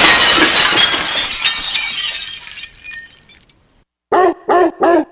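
Glass shattering sound effect: a loud crash with tinkling shards that fade out over about three seconds. Near the end, three short pitched tones in quick succession.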